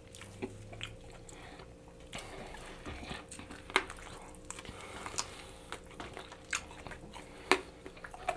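Close-miked chewing and biting on sauced chicken wings: irregular wet clicks and smacks of a mouth eating, a few sharper ones standing out, over a faint steady hum.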